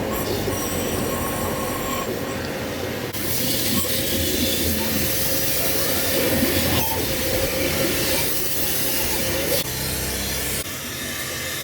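Steady loud hissing rush with a faint motor tone underneath, shifting a couple of times and cutting off abruptly at the end.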